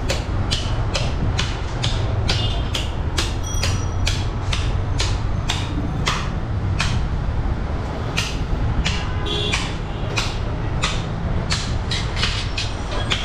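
Butcher's blade knocking sharply and repeatedly in meat cutting, about two or three knocks a second, over a steady low rumble.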